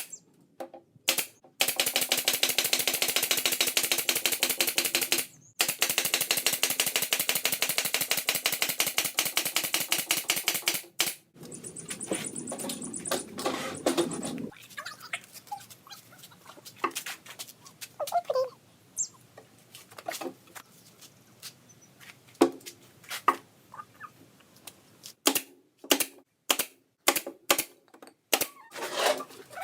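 An impact driver rattling in two long runs of fast, even clicks while driving screws into a wooden speaker enclosure. A shorter, lower whir follows about twelve seconds in, then scattered knocks and clicks of parts being handled.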